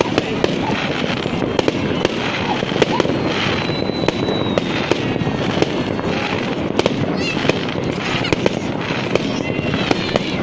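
Fireworks display: a dense, continuous crackling and popping of many small bursts, with a few high whistles from rising shells.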